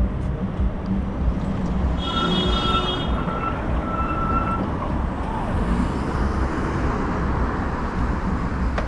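Road traffic noise with heavy low rumble on the microphone. About two seconds in, a high tone sounds for about a second, then returns briefly twice.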